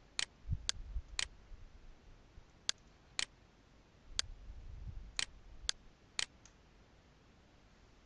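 Computer mouse button clicking through a software installer's Next buttons: about nine sharp clicks, mostly in quick runs about half a second apart.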